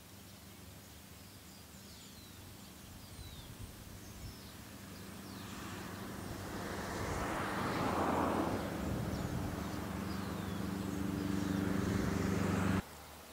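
A motor vehicle's engine running steadily, growing louder over several seconds and staying loud before cutting off suddenly near the end, with birds chirping faintly.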